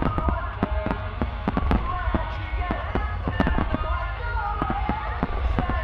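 Aerial firework shells bursting in a rapid barrage, a few sharp bangs a second over a continuous deep rumble, with music playing underneath.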